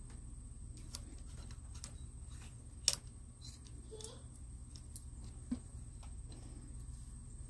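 Faint metallic clicks and ticks from a chainsaw chain and a bar-mounted chain sharpener being handled and adjusted, with one sharper click about three seconds in.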